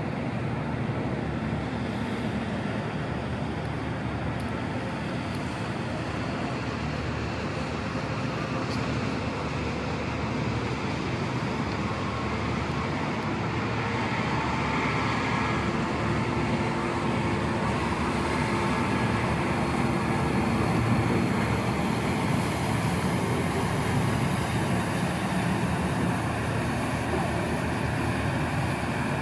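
MTU diesel engines of a high-speed catamaran ferry running at low speed as it manoeuvres in to berth: a steady rumble that grows gradually louder as the vessel comes close, with a hiss building in the second half.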